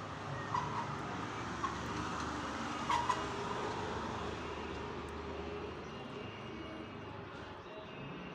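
Steady background rumble of vehicle traffic, with a few brief, sharper sounds about half a second, a second and a half, and three seconds in.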